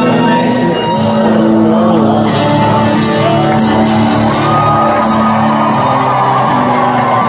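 Live country band playing, with two acoustic guitars strumming and the crowd whooping and shouting over the music.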